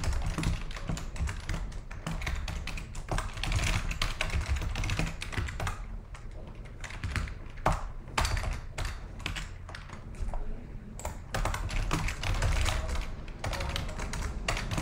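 Typing on a computer keyboard: rapid, irregular key clicks, with brief lulls about six and ten seconds in.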